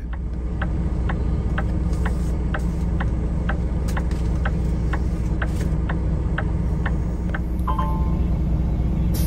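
Semi truck's diesel engine running with a steady low rumble, heard from inside the cab, with a regular ticking about twice a second for most of the stretch. A short two-tone beep sounds near the end.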